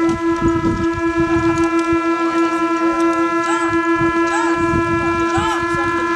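A steady, unbroken horn-like drone holding one pitch with a rich set of overtones, under wind buffeting the microphone, with short high chirps rising and falling over it.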